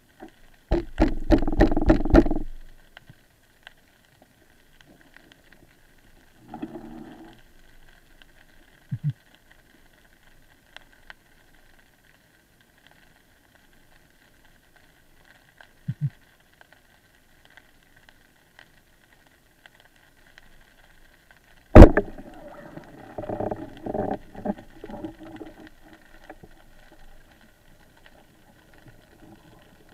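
Underwater, a band-powered speargun fires with a single sharp crack about three-quarters of the way through, followed by a few seconds of irregular knocking and rattling as the spear and its line strike among the rocks. Before it there is a short burst of rapid rattling near the start and a few faint knocks over a faint steady whine.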